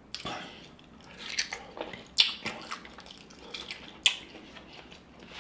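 Close-miked wet chewing and lip-smacking of sauce-soaked lobster meat, with a few sharp wet smacks about two seconds apart.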